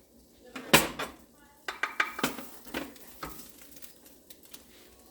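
Kitchen utensils and cookware clattering: one loud clank about three-quarters of a second in, then a string of lighter clinks and knocks with a short metallic ring.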